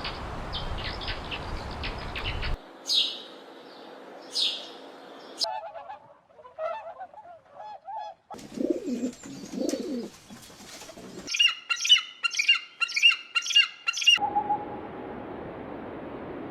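A string of different bird calls cut one after another: two loud descending calls, a few faint chirps, a pair of low calls, then a rapid run of about eight chirps.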